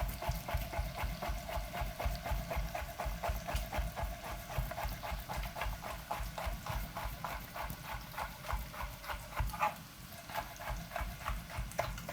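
Kitchen knife slicing peppers into thin strips, the blade knocking in a quick steady rhythm of about five strokes a second.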